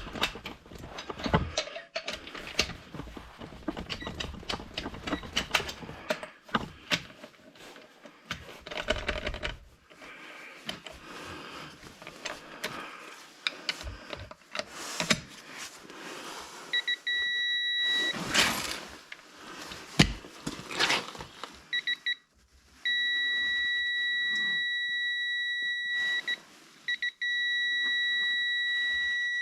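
Metal tools clicking and clanking as a wrench and socket are handled on the lug nuts. Then a steady electronic beep from a digital torque adapter comes in short stretches, and from about two-thirds of the way through it sounds almost continuously with one brief break.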